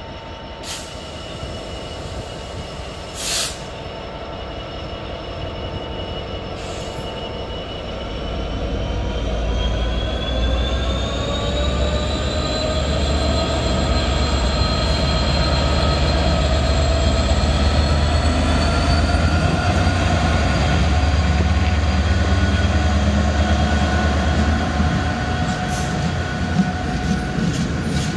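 GB Railfreight Class 66 diesel locomotive with a two-stroke V12 engine passing close by at the head of a freight train. Its engine note swells and rises in pitch as it draws level, then the open box wagons rumble past, with wheels clicking over rail joints near the end. A single sharp bang or hiss sounds about three seconds in.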